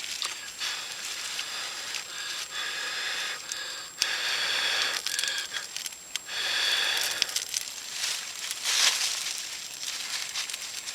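Dry leaves rustling and crinkling as a leaf tinder bundle is handled and worked around an ember, in uneven bursts with a few sharp crackles.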